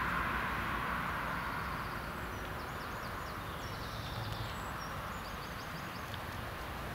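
A small songbird chirping in quick runs of short high notes from about two seconds in, over a steady background hiss and low rumble.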